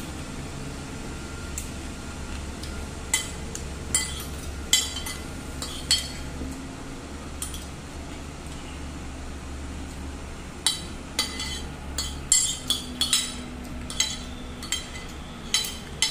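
Metal spoon and fork clinking and scraping against a ceramic plate: scattered sharp clinks, a few in the first half and coming thick and fast in the second half, over a low steady hum.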